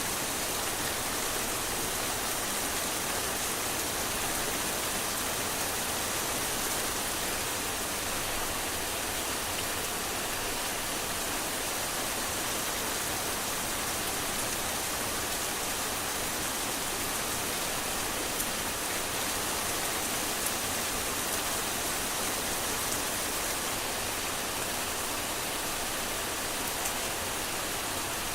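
Heavy rain falling steadily, an even dense hiss of drops with a few sharper drop hits now and then.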